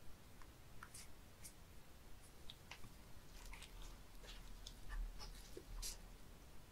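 A gloved hand prods and shifts slimy live spoon worms (fat innkeeper worms) on a wooden cutting board, making faint, scattered wet clicks and squelches.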